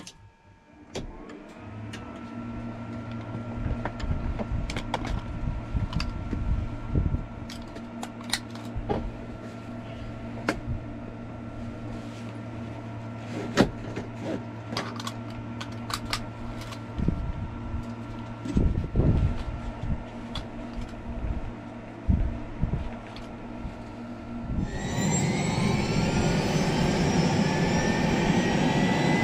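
Airbus H125 (Esquilo B3) helicopter being started from cold. About a second in a steady electrical whine comes on, with a low hum and repeated switch clicks. About 25 seconds in the turbine engine starts: the sound becomes much louder, with whines that rise as it spools up.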